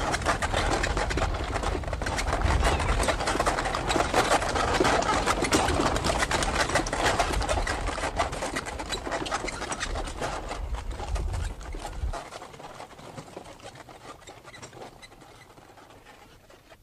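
Dense crackling hiss and low rumble of a worn old film soundtrack. The rumble drops out about twelve seconds in and the crackle fades away toward the end.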